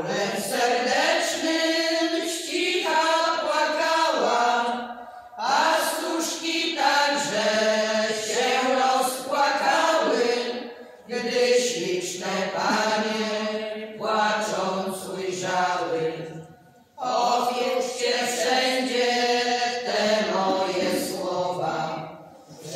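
A group of women sings a Polish folk song a cappella, with no instruments. The singing comes in phrases of about six seconds, with a brief pause for breath between each.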